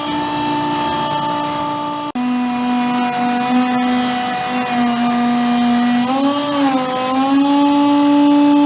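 Portable in-situ machining rig running and cutting a large ring surface with a steady mechanical whine. It cuts out for an instant about two seconds in, comes back at a slightly lower pitch, and wavers up in pitch about six seconds in.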